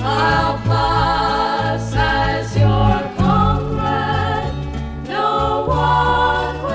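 A song: voices singing together in harmony, with long held, wavering notes over a steady bass accompaniment.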